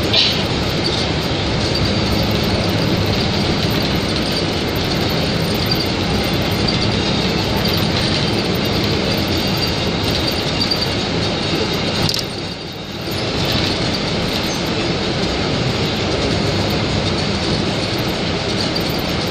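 Inside a moving city bus: steady engine and road noise filling the cabin. The noise dips briefly about two-thirds of the way through, then returns.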